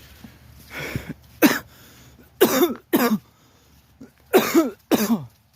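A man coughing repeatedly: a short hack, then two pairs of harsh coughs.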